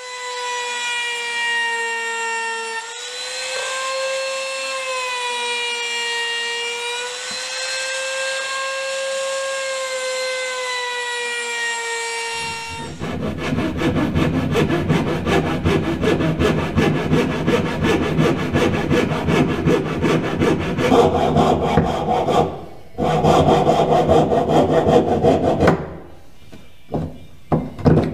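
Compact trim router running at high speed with a steady whine, its pitch dipping slightly as it cuts into wood, until it stops about 13 seconds in. Loud sawing through wood follows, a dense rasping with a short break partway through, and it ends with a few light knocks.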